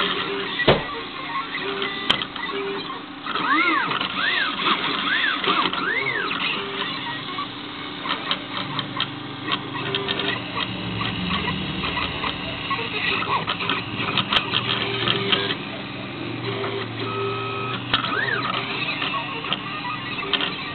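Teneth T24-A vinyl cutting plotter contour-cutting: its stepper motors whine in rising-and-falling tones as the knife carriage traces curves, over a steady hum and a run of small clicks and taps.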